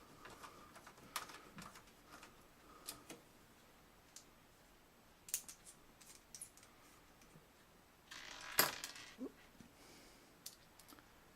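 Screws being driven into a power supply's mounting holes in a metal computer case: scattered small metallic clicks and ticks. About eight seconds in comes a longer scraping rasp that ends in a sharp click.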